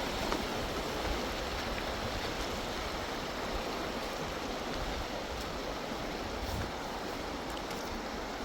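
Steady rush of a stream or river running high, full of water.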